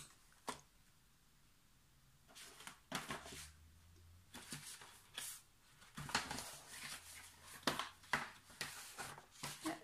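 Faint, scattered rustles and light knocks of someone rummaging through craft supplies, searching for a card.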